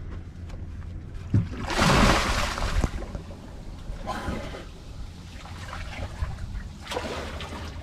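A person diving off a boat into the sea: one loud splash about two seconds in, followed by smaller splashes as he swims.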